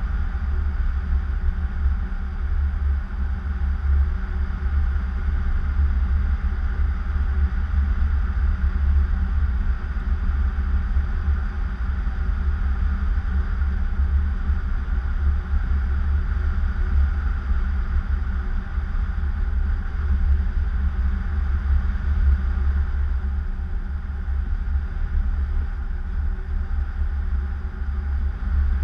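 Steady low wind rumble from airflow buffeting the camera's microphone during paraglider flight.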